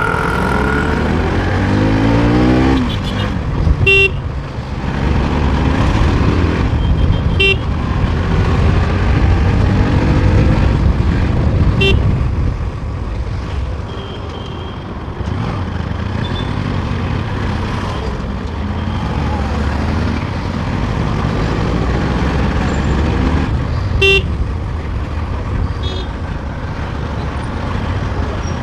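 Motorcycle ride on a Bajaj Pulsar NS200 in traffic: a steady rumble of engine and wind on the microphone, with the engine revving up in the first few seconds. Short vehicle-horn beeps sound several times.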